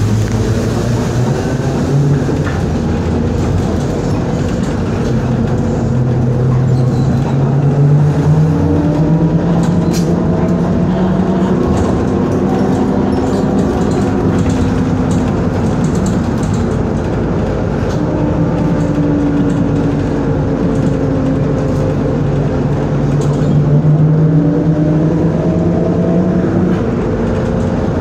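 Inside a ZiU-682V trolleybus under way: the DC traction motor whines, its pitch rising and falling with the trolleybus's speed, over a steady rumble of road noise with a few sharp clicks and rattles.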